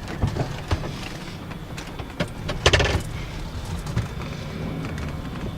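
Steady low rumble of a vehicle on the move, heard from inside, with scattered rattles and knocks and one louder clatter near the middle.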